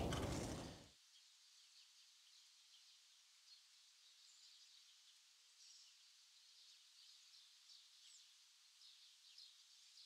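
Near silence: faint outdoor ambience with a few faint, high bird chirps. A man's whispering trails off in the first second.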